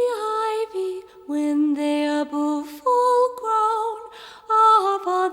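Background music: a slow song sung in held notes that step from pitch to pitch.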